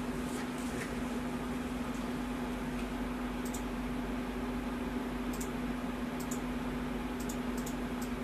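Steady room-tone hiss with a constant low electrical or fan hum, broken by a few faint, scattered clicks of a computer mouse.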